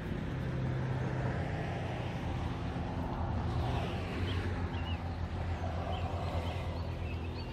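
Steady low hum of a motor vehicle engine running, with a few faint high chirps over the second half.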